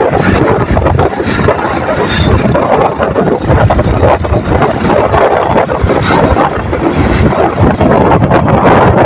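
Heavy wind buffeting the microphone of a moving motorcycle, with engine and road noise beneath.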